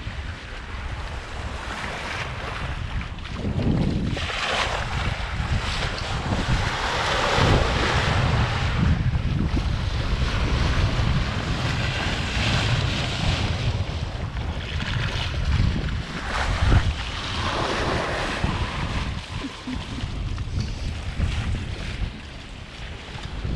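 Wind buffeting the microphone over the rush and splash of water along a sailboat's hull under sail. The water noise swells and fades in surges every few seconds.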